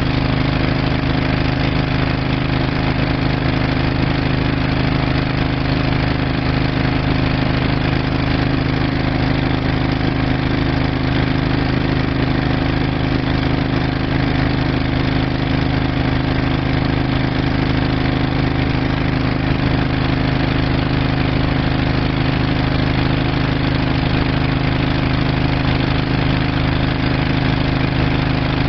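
An engine running steadily at idle, a constant drone with no change in pitch or level.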